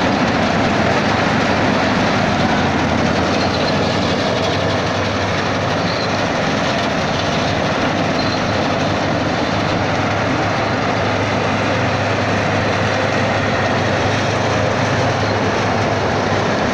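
Standard combine harvester running while it cuts paddy, its engine and threshing machinery making a steady, loud running noise with a low hum underneath.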